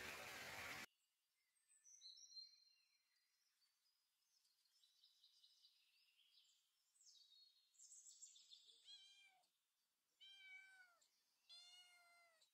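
A domestic cat meowing three times in the second half, short faint meows, each arching in pitch. Before them, faint high bird chirps, and at the very start a steady hiss that cuts off abruptly within the first second.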